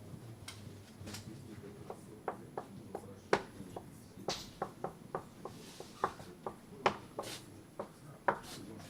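Felt-tip marker writing and drawing: a long run of irregular sharp taps and short strokes.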